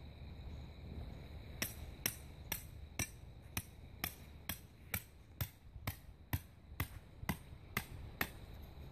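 A hammer driving a tent peg into the ground: a steady run of about fifteen sharp strikes, roughly two a second, starting about a second and a half in.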